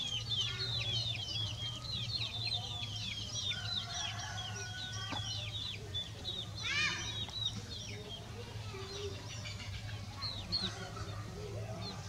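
Yard chickens: a dense run of short, high, falling peeps and chirps, with one louder, short squawk about seven seconds in, over a steady low hum.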